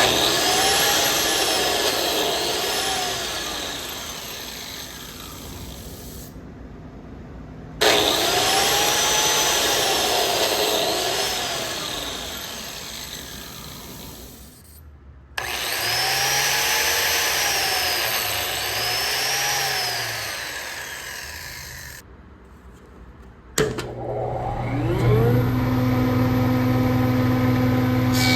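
Woodworking power tool cutting wood in three separate bursts, its motor pitch dipping and recovering twice in each. Near the end a motor spins up with a rising whine and settles into a steady hum.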